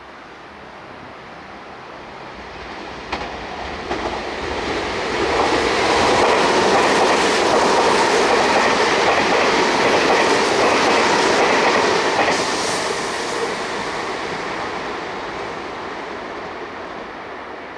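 A Meitetsu 2000 series μSKY electric limited express passing through a station at speed: the rumble of wheels on rail builds as it approaches, with a couple of sharp clacks, is loudest about six to twelve seconds in as the cars go by, then slowly fades.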